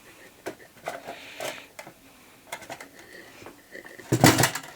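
Plastic clicks and knocks from handling a Kodak EasyShare printer dock's housing as its bottom cover is taken off, with a louder clatter of several quick knocks about four seconds in.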